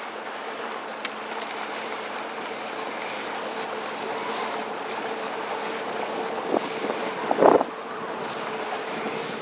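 Small fishing boat's motor running steadily with a constant hum, under wind and water noise; a couple of short bumps near the end.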